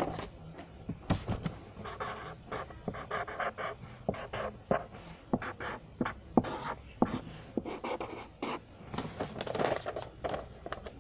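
A pen scratching on paper in short, irregular strokes as something is written out by hand. Near the end the paper rustles as the sheet is picked up and held close to the microphone.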